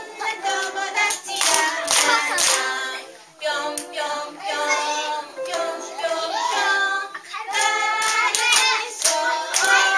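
Group singing of a children's song with hands clapping along, the claps sharp and repeated over the melody.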